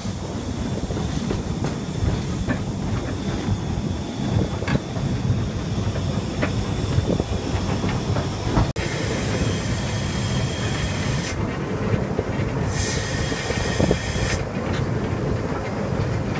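LNER B12 4-6-0 steam locomotive running, heard from the footplate: a steady rumble with irregular rail-joint clicks. After a sudden break about halfway through, two spells of loud steam hiss.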